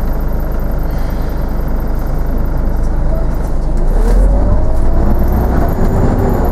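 Inside a Scania articulated bus: steady engine and road rumble, growing louder about four seconds in, with a rising then falling whine as the bus accelerates.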